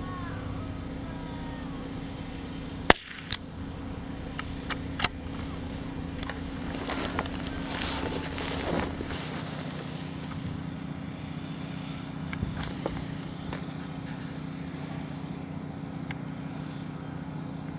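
A single sharp crack of a CZ 455 .22 LR bolt-action rifle shot about three seconds in, followed by a few lighter clicks and then rustling as the shooter gets up, all over a steady low hum.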